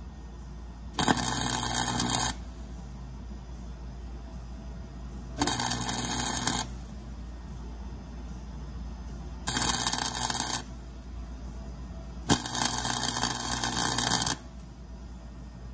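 Harbor Freight welder's arc crackling in four bursts: three of about a second each, then a longer one of about two seconds. The arc is striking on a broken exhaust manifold stud in an LS engine's cylinder head, building up weld so that the stud can be extracted.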